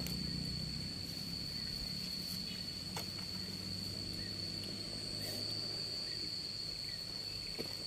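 Insects droning in one steady, unbroken high-pitched tone, over a faint low hum.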